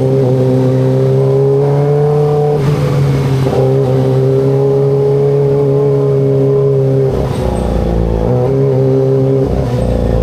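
Kawasaki ZX25RR's 250 cc inline-four engine running at high, fairly steady revs while riding, its pitch wavering and dipping briefly after about seven seconds.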